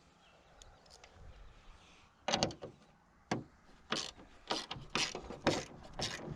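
Socket ratchet being worked back and forth on a bolt, a run of short rasping strokes starting about two seconds in and coming faster toward the end.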